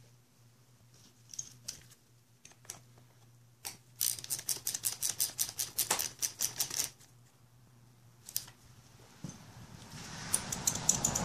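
Ratcheting wrench clicking in a quick, even run for about three seconds as it works a bolt on a motorcycle's handlebar clutch master cylinder, after a few single tool clicks. A rising rush of handling noise near the end.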